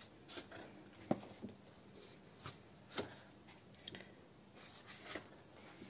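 Sheets of a pad of patterned scrapbooking paper being turned by hand: faint paper rustles and light flicks, several short ones scattered over a few seconds.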